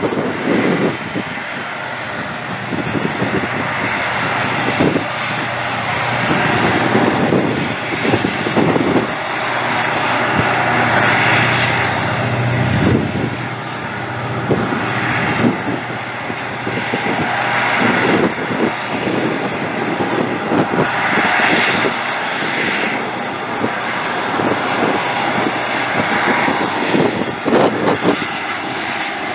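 Diesel-electric freight locomotives running as they haul a container train past: a continuous engine drone over a steady low hum, swelling and easing every few seconds.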